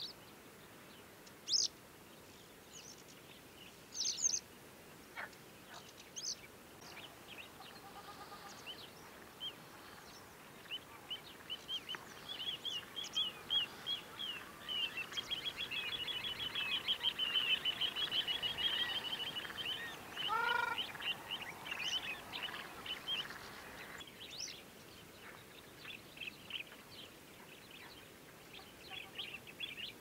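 A riverside bird chorus: many short high chirps and calls from several birds, with a fast run of repeated notes in the middle. About twenty seconds in comes one short, lower call.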